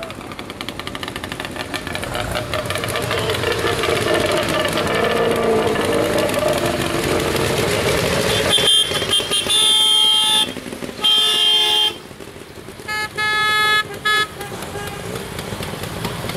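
Small tractor engines running as a line of tractors drives past one after another. About nine seconds in, a vehicle horn sounds: a long blast, another about a second later, then two short toots.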